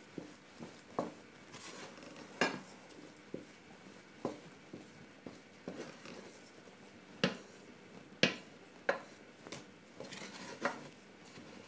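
Wooden spatula knocking and scraping against a stainless steel pot while thick pounded yam is stirred and worked, in irregular knocks, the sharpest about seven and eight seconds in.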